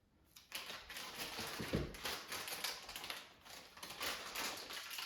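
Packaging being handled: irregular rustling with light clicks and taps.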